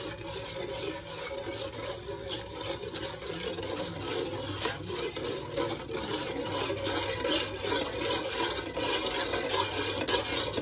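A metal ladle scraping and stirring around a large aluminium pot in quick, repeated strokes, working brown sugar syrup while the sugar melts.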